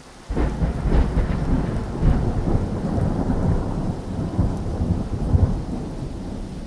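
Thunderstorm: steady heavy rain with rolling thunder that breaks in suddenly about a third of a second in and rumbles on, swelling again around two and five seconds.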